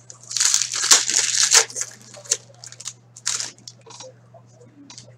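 Foil wrapper of an Upper Deck Black Diamond hockey card pack crinkling and tearing as it is ripped open. A dense stretch of crackling comes in the first second and a half, followed by a few shorter crinkles.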